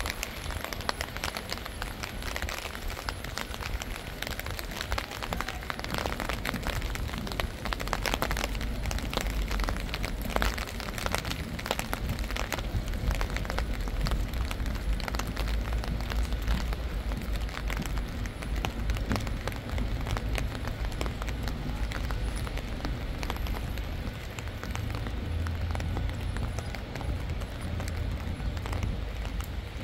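Rain falling, heard as a dense, continuous run of many small drop hits over a low rumble that grows louder near the end.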